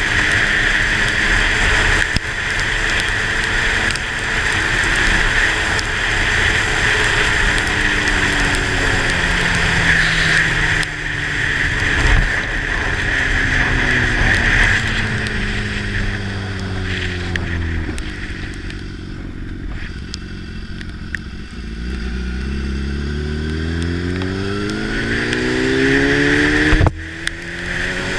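Motorcycle engine on a wet road: its pitch falls as it slows almost to a stop, runs low for a few seconds, then climbs as it pulls away again, with a short break near the end at a gear change. A steady hiss of wind and tyres on wet pavement runs underneath and fades while it is slow.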